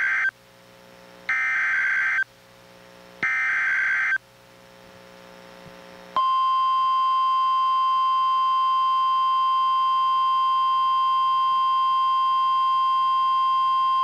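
NOAA Weather Radio SAME alert header: the end of the first harsh digital data burst, then two more bursts about a second long and a second apart. About six seconds in, the steady 1050 Hz warning alarm tone starts and holds. Together they announce a severe thunderstorm warning.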